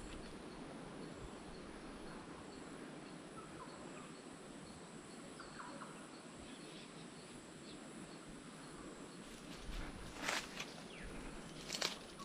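Bush ambience: a steady insect hiss with faint high chirps repeating about twice a second. Two sharp clicks near the end are the loudest sounds.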